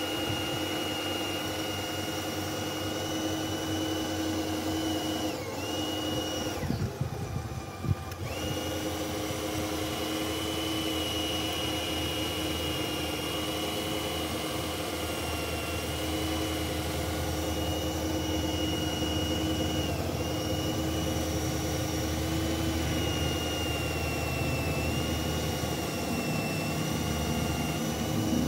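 Electric motor of a radio-controlled JCB model excavator whining steadily as the arm digs in mud, its pitch dipping briefly a few times. About seven seconds in the whine stops for a second and a half, with a few low knocks and one sharp click.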